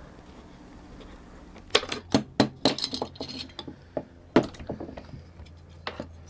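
Pliers and small sheet-metal parts of a toy gear frame clinking together. There is a quick run of sharp metallic clicks and clinks after about a second and a half, then a few more near the end.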